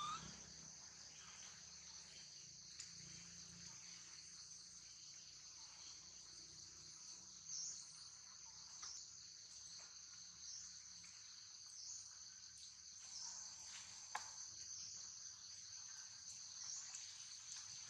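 Faint, steady high-pitched insect chorus that swells slightly about every second and a half. A brief rising squeak comes at the very start, and a single sharp click about 14 seconds in.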